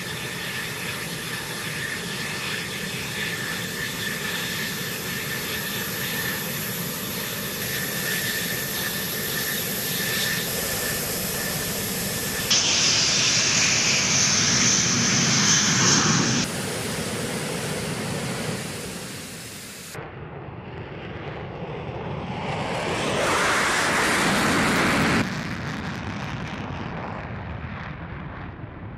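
F-16 Fighting Falcon jet engine running with a steady high whine for about twelve seconds. Then, in abrupt shifts, it becomes the much louder rush of an afterburner takeoff, swells once more as the jet passes, and fades as it climbs away.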